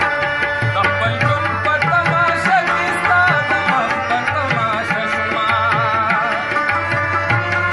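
Live Pashto devotional music: harmonium holding steady notes and a rabab, with hand-drum strokes keeping a steady rhythm and a man singing a wavering, ornamented melody.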